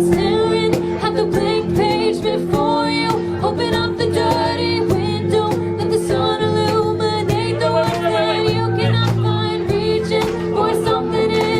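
A live pop-rock band playing steady sustained chords, with a singer's wordless wavering melodic line over them.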